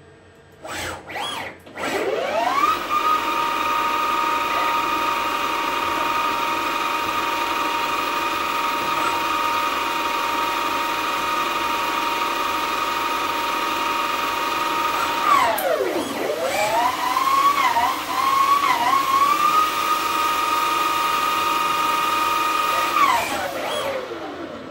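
DIY CNC lathe spindle spinning up to about 2000 rpm with a steady whine, preceded by a couple of short bursts of sound about a second in. About two-thirds through the pitch drops and climbs back unevenly, and near the end the whine glides down as the spindle slows.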